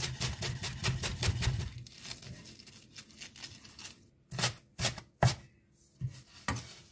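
Zwilling chef's knife chopping fresh greens, such as cilantro and green onions, on a board: quick, even strokes at about five or six a second for the first two seconds, thinning out into about five separate chops in the second half.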